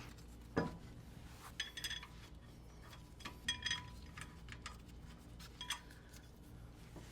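Faint, scattered clinks of metal tools and parts being handled, a few of them ringing briefly, over a low steady hum.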